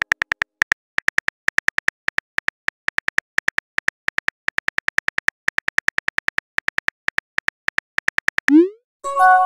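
Simulated phone keyboard clicks from a texting-story app, ticking steadily at about five a second as a message is typed. Near the end comes a short rising swoosh as the message sends, then a chime of a few steady tones begins.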